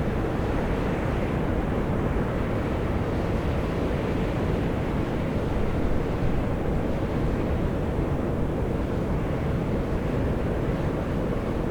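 Volcanic fumaroles jetting steam in a steady, low rushing hiss without any breaks.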